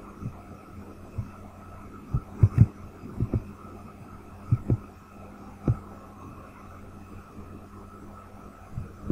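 Steady low electrical hum with a scattering of short, low thumps, most of them packed into the first six seconds: the knocks of a computer mouse and keyboard being worked, picked up by a desk microphone.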